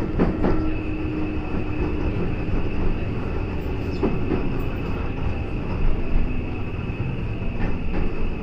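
Kobe Electric Railway train running, heard from inside the rear cab: a steady rumble of wheels on rail with a few sharp clacks as the wheels cross rail joints and points. A steady high-pitched whine sets in about a second in.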